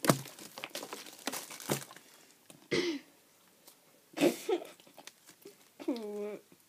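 Girls' muffled vocal sounds: short mumbles and a breathy laugh or cough just before the halfway point, then a drawn-out pitched vocal sound near the end, with a few sharp clicks and rustles in between.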